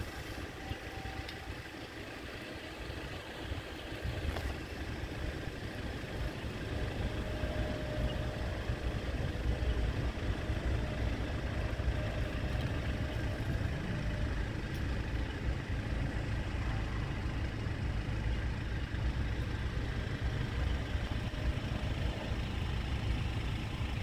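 A steady low rumble with no distinct events, growing a little louder after the first few seconds.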